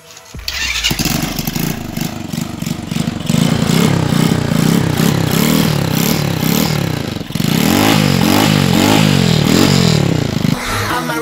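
Rusi Korak motorcycle engine starting, then revved up and down again and again through its old stock exhaust. The muffler is broken, sagging and full of holes, with its shields coming loose, and gives the buzzing note the owner likens to a cricket.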